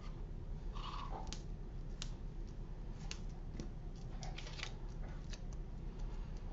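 Light clicks, taps and short rustles of cardstock being handled on a tabletop, over a steady low hum.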